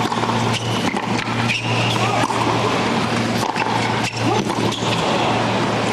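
Tennis racquets striking the ball back and forth in a hard-court baseline rally, a sharp hit every second or so, with short squeaks from shoes on the court, over a steady low hum.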